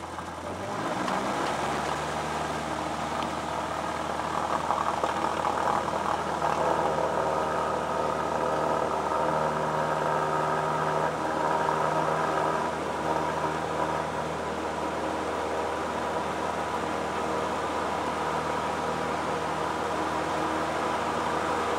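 Single-engine light aircraft's engine and propeller, heard from inside the cockpit, rising in pitch and getting louder about a second in as the throttle goes to full power for takeoff, then running steady through the takeoff roll.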